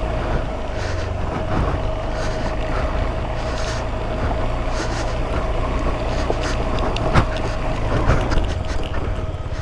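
Motorcycle's single-cylinder engine pulling steadily as the bike climbs over loose boulders, with scattered sharp knocks and rattles from the rocks and the bike, over a steady thin hum.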